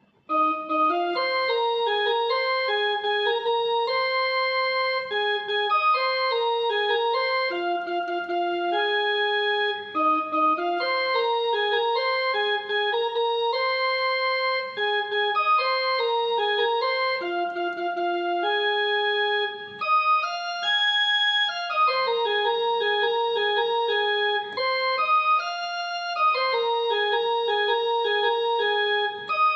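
Music played on an electronic keyboard: a melody of clear, held notes changing in steps, starting about half a second in.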